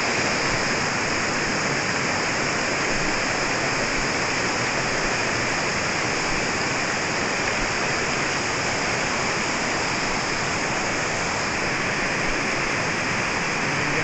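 Water of a waterfall cascade rushing steadily over rock ledges, a constant, even rush with no breaks.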